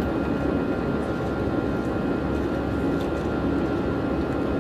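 Jet airliner's engines and rushing air heard inside the cabin in flight: a steady, even noise with a few faint steady tones running through it.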